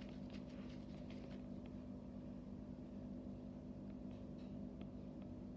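Quiet room tone: a steady low electrical hum with a few faint, scattered clicks.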